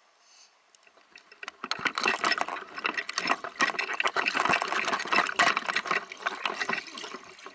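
Air bubbles rushing and crackling underwater close to the camera, a dense gurgling that starts about a second and a half in.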